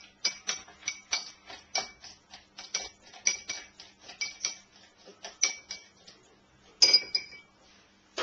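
Fresh banana being muddled in a glass: the muddler knocks the bottom of the glass about three times a second, each stroke a short ringing clink. The strokes stop near the end, after a single louder clink.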